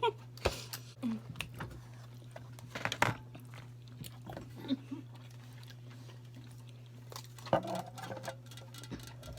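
People eating Chinese takeout close to the microphone: chewing, with scattered small clicks and knocks, over a steady low hum.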